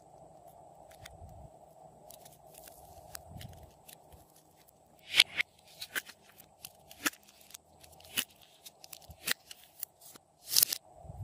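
A thin plastic makeup-clay pan being pressed and flexed while soft clay is squeezed into it by hand: scattered faint crackles, then a run of sharp plastic clicks from about halfway, the loudest around the middle and near the end.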